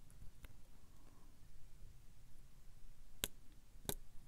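Hook pick working the pin stack of a brass euro-profile cylinder lock (K1 Locks Unkle Billy) during single-pin picking: sharp metallic clicks, one faint about half a second in, then two louder ones a little over half a second apart near the end.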